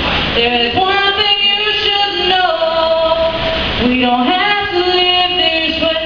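A woman singing a cappella, holding long notes that slide from one pitch to the next, with a short break for breath about four seconds in.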